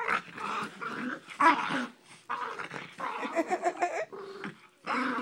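A Boston terrier and a cairn terrier play-fighting: short growls over scuffling and snapping.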